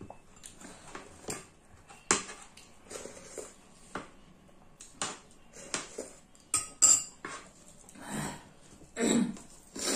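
Metal spoons clinking and scraping against plates and bowls during a meal, in scattered short clicks, with sharper clinks about two seconds in and around seven seconds. A couple of duller, longer sounds come near the end.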